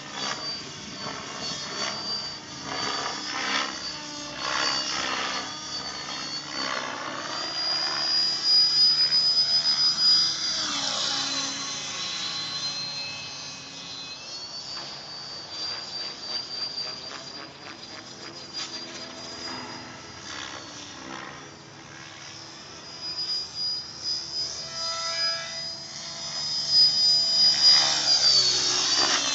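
Thunder Tiger X50-E electric RC helicopter in flight: the high whine of its brushless motor and rotors, with rotor noise swelling and sweeping up and down in pitch as it passes. It is loudest about a third of the way in and again near the end.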